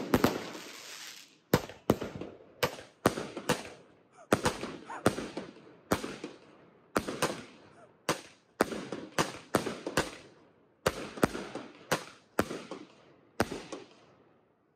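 Fireworks fired from one spot on the ground: a long string of loud bangs, about two dozen at roughly two a second, each followed by a short crackle as the shells burst overhead. The string stops about thirteen seconds in.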